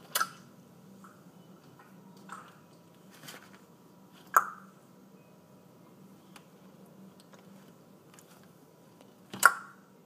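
Three sharp knocks or clicks, one right at the start, one about four seconds in and one near the end, with a few fainter ticks between, over a faint steady background hum.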